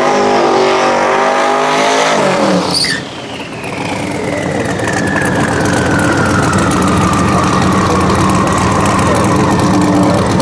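Twin-turbo LS V8 of a Mk1 VW Passat drag car doing a burnout, the engine held at high revs with the rear tyres spinning in smoke. The revs drop sharply about two and a half seconds in. After that the engine rumbles at lower revs under a thin whine that falls slowly in pitch.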